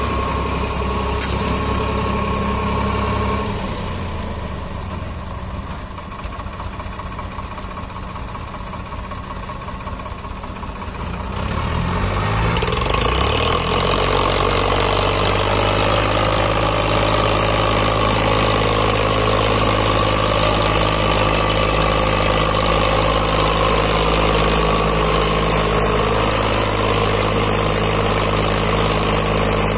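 Farmtrac 60 tractor's diesel engine running, easing down to a quieter low speed for several seconds. About twelve seconds in it revs up and holds steady high revs under load, towing a stuck tractor and its loaded trolley out of soft sand.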